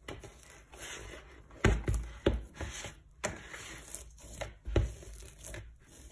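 Sticky, wet sourdough bread dough being pressed and tucked by hand in a plastic bowl: soft rubbing and squelching, broken by several dull knocks in the middle as the dough and bowl are pushed against the worktop.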